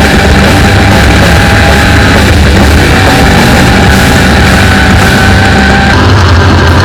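Loud music.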